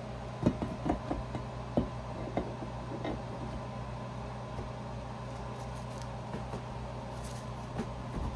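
Several light metal knocks in the first three seconds, the loudest about half a second in, as the cast aluminium tail housing of an M5R1 manual transmission is lowered and seated onto the transmission case, over a steady background hum.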